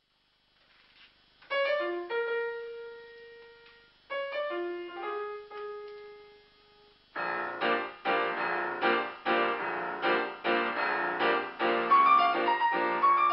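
Solo piano music: two short phrases of a few notes left ringing, then, from about seven seconds in, a busier passage of quick notes and chords.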